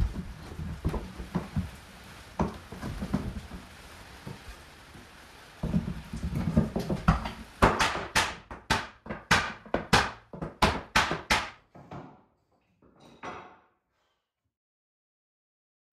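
Knocks and clatter from work on steel bar clamps holding a wooden chair frame: low handling noise at first, then about a second and a half of heavier clatter, then a run of sharp knocks, about two a second. It all dies away near the end.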